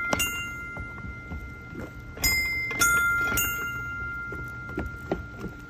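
Bell-like chime notes from a step-on sound-memory game pad: a higher note about two seconds in and a lower one just after, each ringing on for a few seconds. Faint taps of footsteps on the plates come between them.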